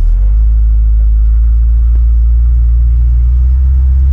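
1971 Ford F100's 460 V8 engine running steadily as the truck drives down the road, heard from inside the cab as a loud, deep rumble.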